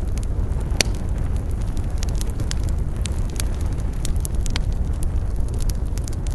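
Campfire burning, its wood crackling in irregular sharp pops, the loudest about a second in, over a steady low rumble.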